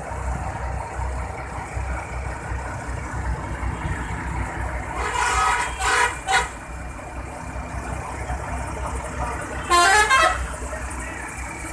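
A diesel engine idles with a steady low rumble while a vehicle horn sounds: a few short honks around the middle, then one longer and louder honk near the end.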